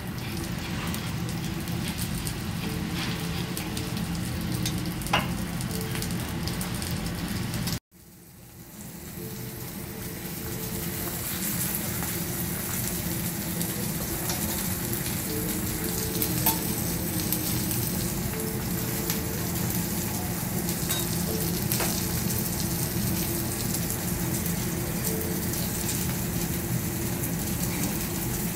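Beef steak and vegetables sizzling on a teppanyaki steel griddle, a steady frying hiss. The sizzle drops out abruptly about eight seconds in and swells back over the next few seconds, with a couple of sharp ticks along the way.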